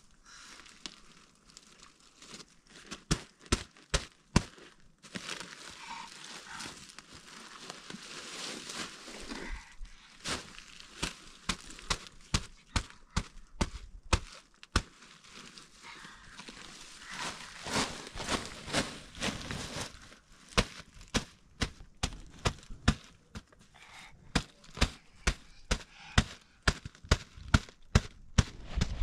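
A run of sharp knocks or taps with rustling between them. The knocks come faster and more evenly toward the end, about two a second.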